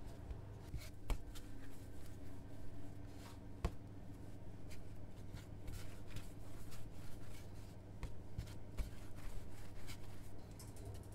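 Hands rolling bran bread dough into logs on a wooden board: soft rubbing and brushing strokes, with a couple of sharper knocks on the board.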